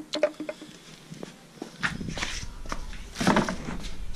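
A few light clicks and knocks as a plastic corner light is handled and set down on concrete, then footsteps and shuffling on concrete.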